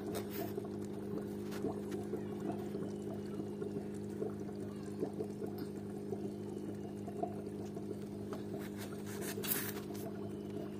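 Homemade air-driven bottle filter in an aquarium bubbling and trickling, over a steady low hum. A short, louder scratchy noise comes about nine and a half seconds in.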